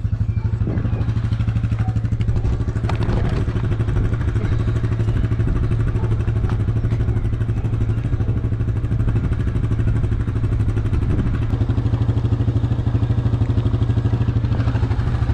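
Yamaha Grizzly 700 ATV's single-cylinder four-stroke engine idling evenly at a constant speed, with a steady low pulsing beat and no revving.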